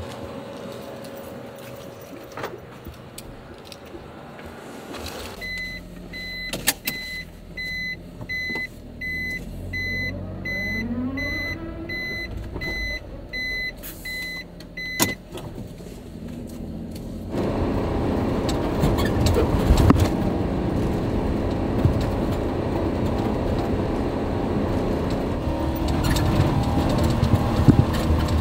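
A light truck's sounds: an electronic warning beep repeating about twice a second for around ten seconds, then, from about two-thirds of the way in, a louder, steady running noise.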